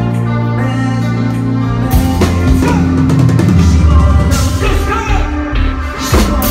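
Live band playing: held guitar and bass chords at first, then about two seconds in the drums come in and the full band plays.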